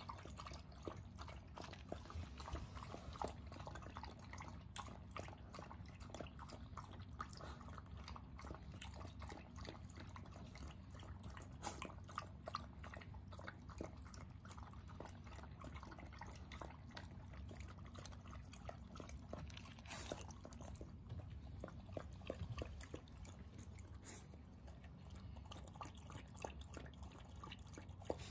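Shiba Inu dogs lapping water from a bowl: a steady run of quick, wet tongue laps.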